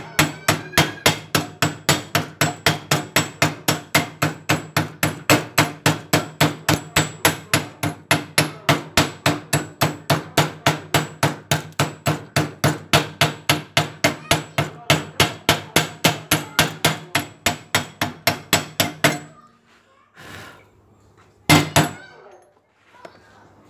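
Hammer chipping slag off a fresh 6013 stick-weld bead on steel angle: rapid, even metal-on-metal strikes, about four a second, which stop a little before the end and are followed after a short pause by two quick final strikes. This is the slag-removal step that uncovers the finished bead.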